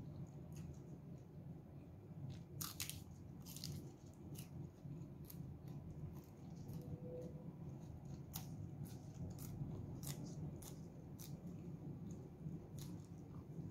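Close-up chewing of raw leafy greens, with irregular crisp crunches over a low steady background hum.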